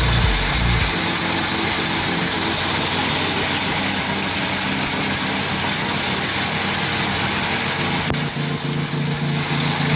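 Small engine of a fish-feed blower machine running steadily, a hum under a constant rushing hiss as feed is blown out over the pond.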